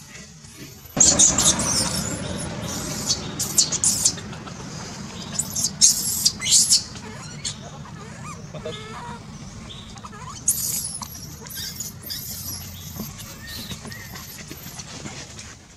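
Infant macaque squealing: repeated shrill, very high-pitched cries starting suddenly about a second in, thickest over the next six seconds and flaring again around ten seconds, over a low background hiss.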